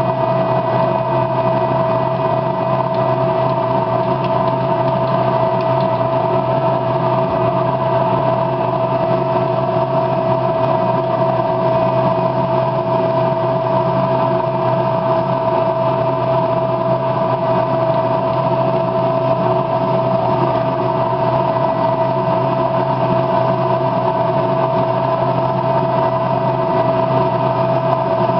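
A machine running with a steady, unchanging hum that holds one constant mid-pitched tone.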